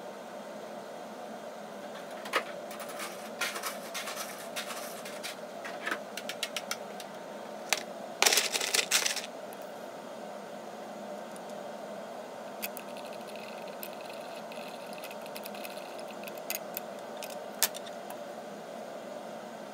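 Ice cubes in an ice-water bath cracking and ticking in scattered sharp clicks, with a louder crackling cluster about eight seconds in, over a steady room hum.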